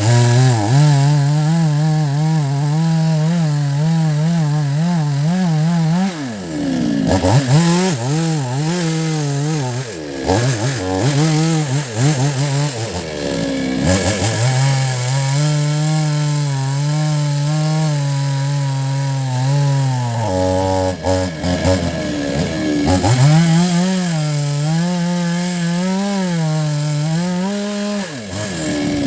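Chainsaw running at full throttle while cutting into a large tree-root stump. Its engine note wavers and sags repeatedly as the chain bogs down in the wood, then picks back up several times.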